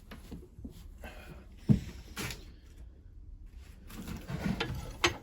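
Workshop handling noises as the cant hook's wooden handle and tools are worked on: scattered knocks and rubbing, with one sharp knock about a third of the way in and a click near the end.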